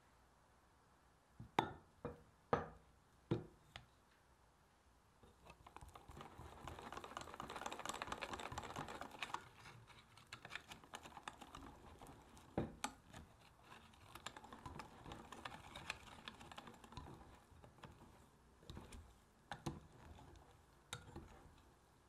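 Wire balloon whisk stirring meringue into egg-yolk batter in a glass measuring jug, a dense rapid ticking and scraping of the wires against the glass that is loudest a few seconds after it starts and then eases off. Before that come four sharp knocks on the jug as the meringue is tapped off a spatula.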